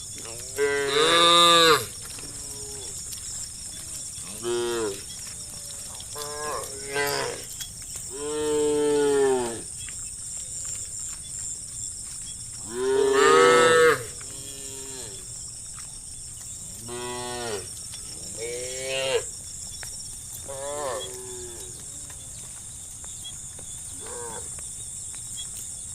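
A herd of cows mooing, about ten separate calls one after another, some long and loud, others short and fainter.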